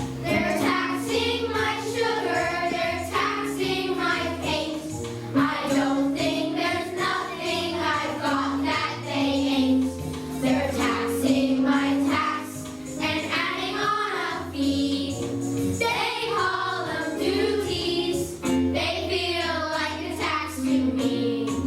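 Music with children singing over a steady accompaniment.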